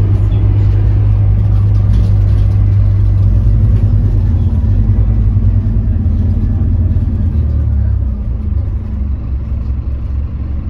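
Scania K310UB bus's five-cylinder diesel engine running under way, a steady low drone heard from inside the passenger cabin. About three-quarters of the way through, the drone drops lower and a little quieter.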